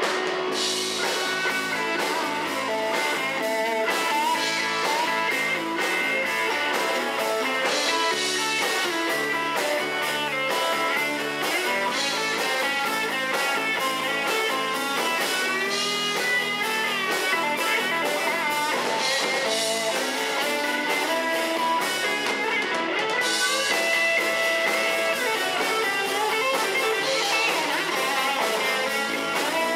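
Live rock band playing an instrumental stretch: electric guitar carrying bending lead lines over bass guitar and a drum kit with cymbals.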